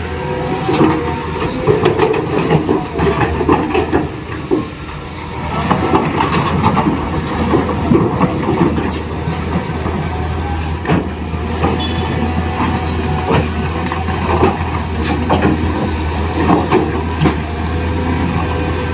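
Radio-controlled toy excavator working: small electric motors running with a steady hum, under many irregular clicks and rattles from its plastic gears and parts.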